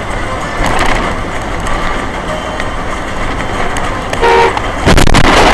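Road traffic noise as heard in a car, with a short car horn honk about four seconds in. Near the end, a sudden much louder rush of noise breaks in.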